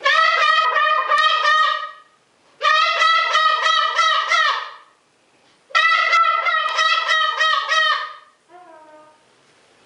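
Greater sulphur-crested cockatoo calling loudly in three bouts of about two seconds each. Each bout is a rapid string of pulsed, honking notes, about four or five a second. A short, lower call follows near the end.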